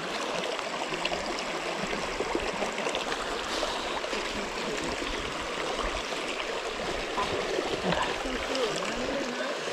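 A stream running with a steady rush of water, and faint voices near the end.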